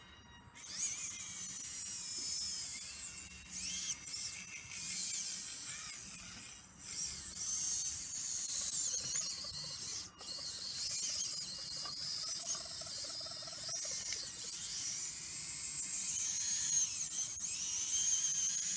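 High-pitched electric whine of a radio-controlled Schaeff HR16 model mini excavator's hydraulic pump and servos, wavering up and down in pitch as the boom and bucket move, with two brief breaks, about a third of the way in and just past halfway.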